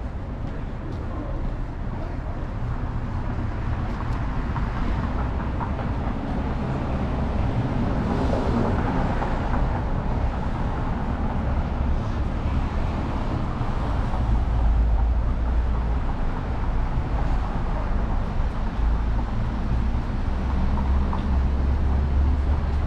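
Downtown street traffic: vehicles passing with a continuous low rumble, one passing swell about a third of the way in, and the rumble growing louder toward the end.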